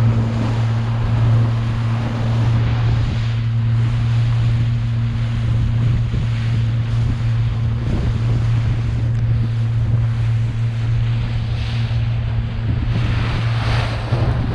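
A boat's motor running steadily with a constant low hum, under wind buffeting the microphone and water rushing past the hull.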